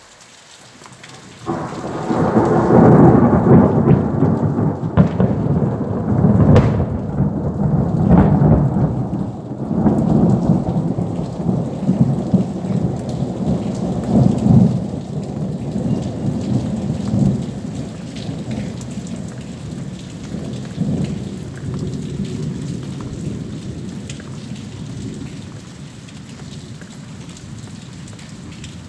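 A thunderclap breaks out suddenly about a second and a half in and rolls on as a long rumble with several swells, dying away slowly over some twenty seconds. Steady rain falls throughout.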